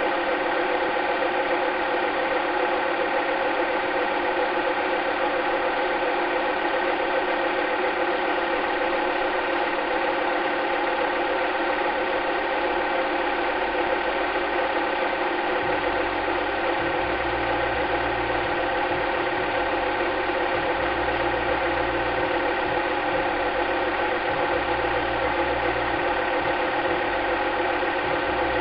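Steady mechanical whirring and clatter of a cine film projector running. A low hum pulses on and off about once a second from about halfway through.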